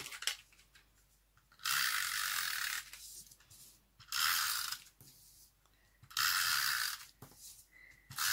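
Handheld tape runner drawn along the back of a paper card panel, laying adhesive in three strokes, each a steady whirring of about a second.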